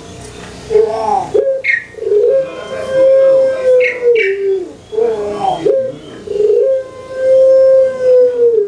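Puter pelung (domestic ringneck dove, Streptopelia risoria) cooing: two long, drawn-out phrases, each opening with a few quick rising notes and then holding one low note.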